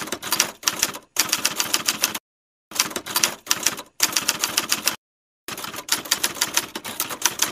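Typewriter keys clacking in quick runs of strokes, broken by short pauses about two and five seconds in.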